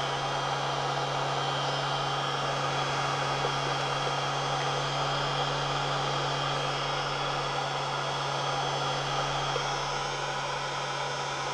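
Electric heat gun running steadily, its fan blowing hot air with an even rushing noise over a low hum.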